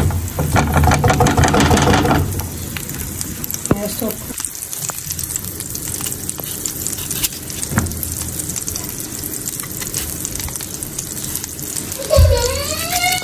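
Melted butter sizzling in a frying pan: a steady fizz with scattered small crackles and pops.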